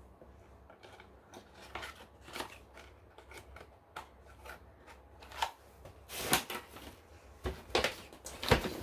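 Fingertip taps and small clicks on a body spray bottle and its plastic cap, handled close to the microphone. About six seconds in come louder rustling and then a few sharp knocks as objects are set down and picked up.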